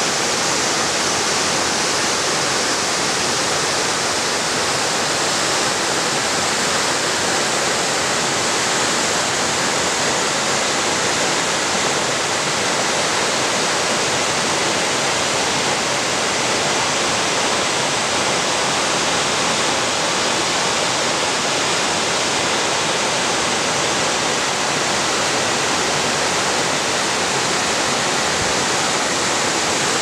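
A high waterfall of about 85 feet: falling water rushing steadily, without a break.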